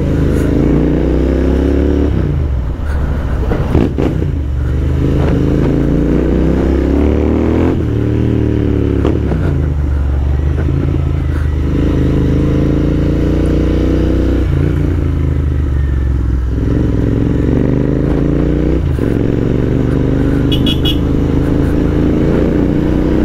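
Royal Enfield Interceptor 650's parallel-twin engine, breathing through an aftermarket exhaust, accelerating hard through the gears. The note climbs in pitch in each gear and drops sharply at each shift, several times over, then runs steadier near the end.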